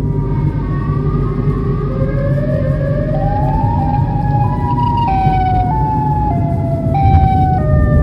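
A siren whose pitch rises in gliding steps, then drops in uneven steps in the second half, over the steady low rumble of a car driving on the road.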